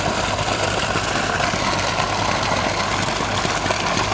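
Irrigation pump running steadily with a low hum, water gushing from its outlet pipe.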